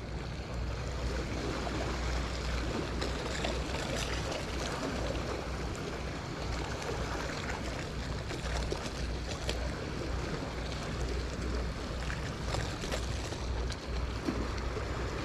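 Wind noise on the microphone over a steady wash of water, with a few faint clicks.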